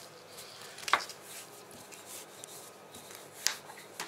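Wooden rolling pin rolling out a square of puff pastry dough on a kitchen worktop: soft rubbing, with two sharp knocks, about a second in and near the end.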